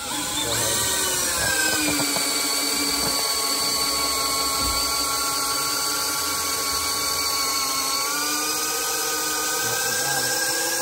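Power drill boring a long bit into a log post. The motor whine spins up, drops in pitch within the first two seconds as the bit bites into the wood under load, runs steadily, then rises slightly near the end.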